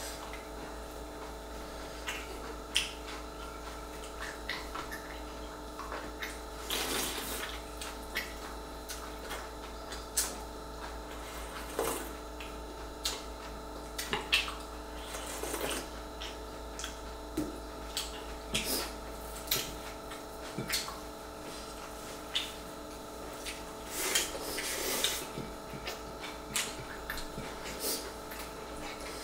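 Close-up eating sounds: wet chewing and lip smacks in short clicks, and three longer slurps of soup, one about halfway through.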